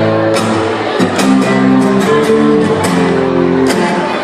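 Music with guitar playing chords and a steady beat.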